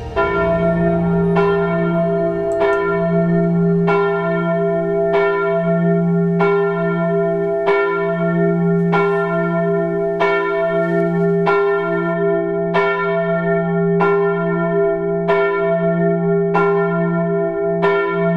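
A large church bell tolling steadily, struck about once every second and a quarter, each stroke ringing on into a long humming tone that carries over into the next.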